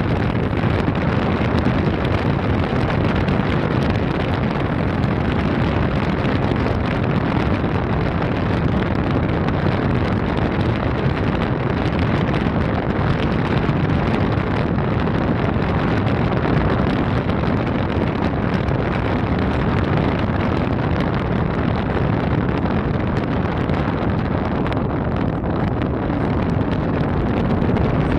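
Steady wind rushing over the microphone, with a tour boat's engine running underneath and no distinct events; the noise is heaviest in the low end.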